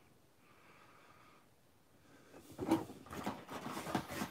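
Clear plastic toy packaging crinkling and clicking as it is handled, starting about two seconds in, with several sharp knocks near the end.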